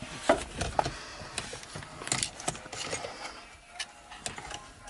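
Scattered clicks and knocks of plastic trim parts of a BMW E92 seat belt presenter being handled and fitted into place.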